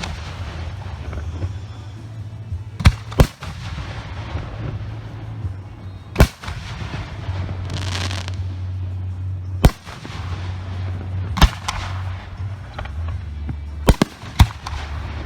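Professional aerial firework shells bursting: about seven sharp booms at irregular intervals, two in quick succession a few seconds in and two more near the end, over a steady low rumble.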